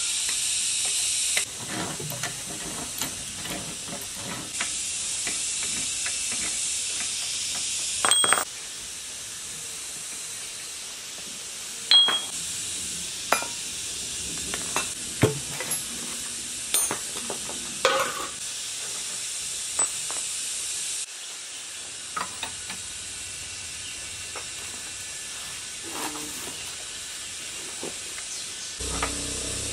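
Hand tools working on a cast-iron diesel engine block: scattered metal clinks, scrapes and knocks from a socket wrench and extension, over a steady high hiss that changes level abruptly several times.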